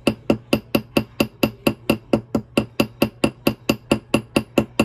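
Riveting hammer's cross peen tapping a wire rivet against a steel bench block: light, even metallic taps, about four a second, spreading the rivet head so it cannot slide out.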